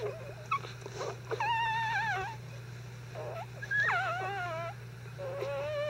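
Five-day-old Icelandic Sheepdog puppies whimpering: three high, wavering cries of about a second each, each falling in pitch at its end, the last starting near the end.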